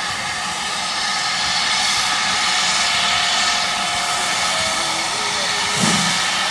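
Steam locomotive letting off steam: a steady hiss that swells over the first second and then holds.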